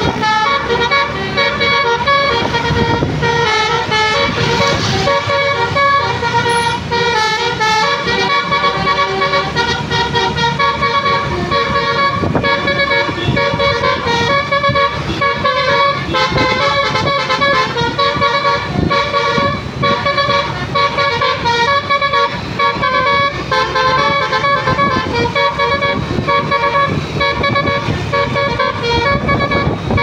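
Indonesian tour bus's Basuri V3 'telolet' multi-trumpet horn playing a continuous tune of short stepped notes, with the bus engine and road noise underneath.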